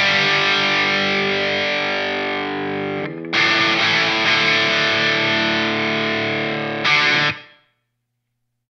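Overdriven electric guitar through a Line 6 Helix amp modeler on a high-gain preset (Cali Texas Channel 2 amp model, based on the Mesa Boogie Lone Star, with boost and drive blocks and room reverb). Two chords are struck and left to ring for about three seconds each. The playing is stopped short about seven seconds in.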